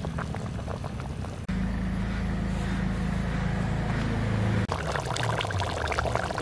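Chicken curry bubbling at a boil in a pan over a portable gas stove, with small pops and a low steady hum under it. The sound changes abruptly about a second and a half in and again near the end, with a heavier low rumble in between.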